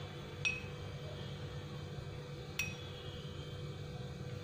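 Two light clinks of a spoon against a container as chilli powder is spooned onto raw chicken pieces, each ringing briefly, the first about half a second in and the second about two and a half seconds in. A low steady hum runs underneath.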